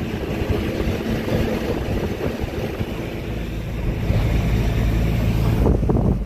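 Truck driving along a highway, heard from the cab: engine drone, tyre and road noise, and wind on the microphone. Near the end the wind hiss drops away suddenly, leaving the low engine drone.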